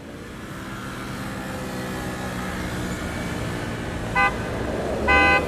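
Road traffic fading in, a steady hum of engines, with two vehicle horn honks: a short one about four seconds in and a longer, louder one near the end.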